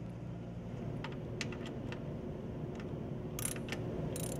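Socket ratchet wrench loosening the top port plug on a Hydro-Gear transaxle: a few scattered metal clicks, then two short runs of rapid ratchet clicking near the end.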